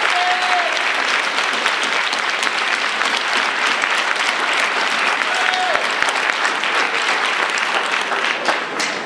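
Audience applauding at length, a dense sustained clapping with a few voices calling out, easing off at the very end.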